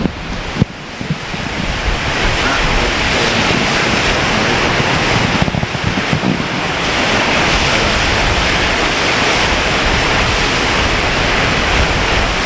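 Eas Mor waterfall in spate after heavy overnight rain: a steady rush of falling water that grows louder over the first two seconds and then holds steady. Wind buffets the microphone over it.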